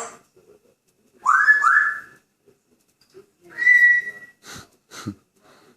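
African grey parrot whistling: two quick rising whistle notes, then a longer steady whistled note, followed by two short clicks.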